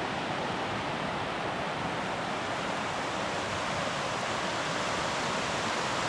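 Steady rushing of fast-flowing water, a rain-swollen river or waterfall, an even unbroken hiss.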